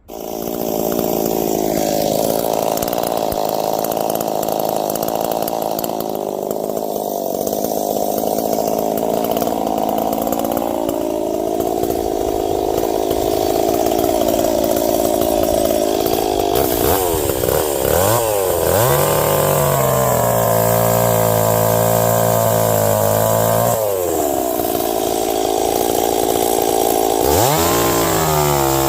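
Ported Stihl 026 two-stroke chainsaw running hard while cutting ash wood. The engine pitch wavers under load for the first half, then climbs and holds, dips about three-quarters of the way through, and climbs again near the end.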